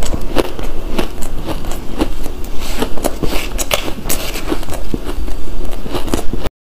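Close-miked crunching of fluffy purple ice being bitten and chewed: many sharp, irregular crackly crunches that stop abruptly near the end.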